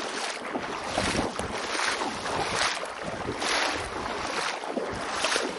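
Wind buffeting the microphone over water washing and sloshing at a rocky estuary shore, surging about once a second.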